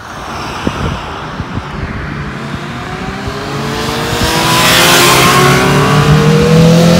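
A group of motorcycles approaching on the road, their engines rising in pitch as they accelerate out of a bend. The sound grows louder for about five seconds, then holds loud as they draw near.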